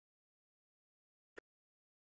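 Near silence broken by a single short click about one and a half seconds in.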